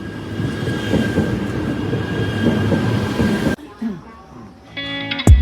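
Bullet train running on the rails, a rumble with a faint steady whine that grows louder over a few seconds and cuts off suddenly about three and a half seconds in. Guitar music starts near the end.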